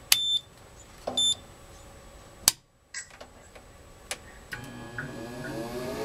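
Two short electronic beeps from a Fieldpiece HS36 meter as it is switched on, then a few sharp clicks. About four and a half seconds in, the Rheem furnace's induced draft blower motor starts, its hum rising in pitch and growing louder as it spins up on the call for heat.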